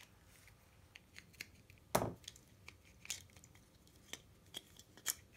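Small plastic speaker case being handled and pulled apart by hand: scattered light clicks and taps, with one louder knock about two seconds in.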